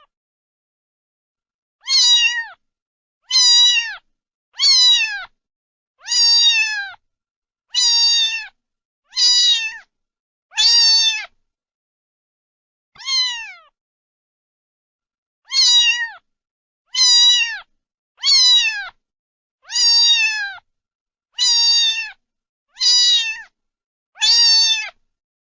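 A domestic cat meowing over and over, about fifteen short meows that each fall in pitch. They come roughly every one and a half seconds, with a longer pause around the middle, and there is silence between them.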